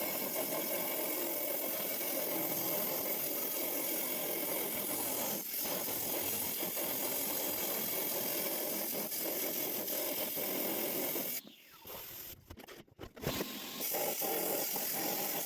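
Rock saw grinding steadily through a large, hard agate nodule. The cut sound drops out for about two seconds near the end, then resumes.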